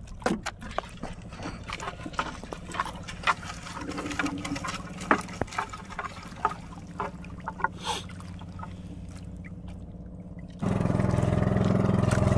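Water dripping and splashing, with many small clicks and trickles, as a wet fishing net is pulled by hand over the side of an outrigger boat. About ten and a half seconds in, a boat engine cuts in suddenly and runs loud and steady.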